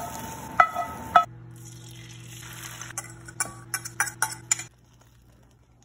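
Utensils clinking and scraping against a cast iron skillet and a ceramic plate: a few sharp clinks over frying sizzle in the first second, then a run of quick taps and clinks as filling is spooned onto the eggs, over a steady low hum that stops near the end.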